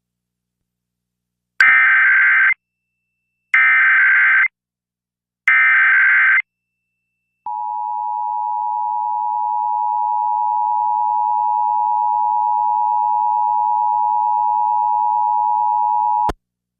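Emergency Alert System Required Monthly Test: three one-second bursts of SAME header data tones, then the two-tone EAS attention signal (853 and 960 Hz) held steady for about nine seconds before it cuts off suddenly.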